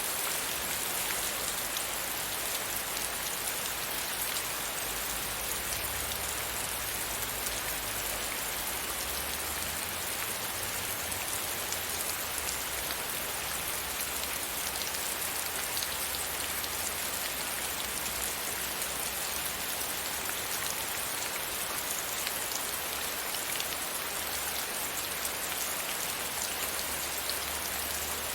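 Steady rain falling, a continuous even hiss with many fine individual drop patters.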